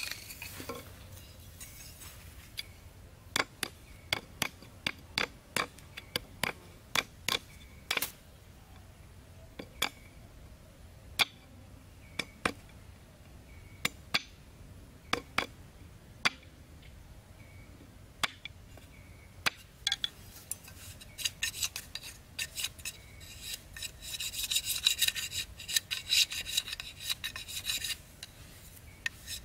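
Machete striking bamboo on a wooden board in sharp single knocks, a few seconds apart at first and then in quicker runs. In the last third it turns to quick, continuous scraping as the blade shaves a thin bamboo stick.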